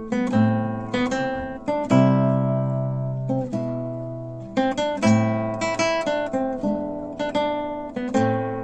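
Acoustic guitar music: plucked notes and strummed chords that ring out and fade before the next ones.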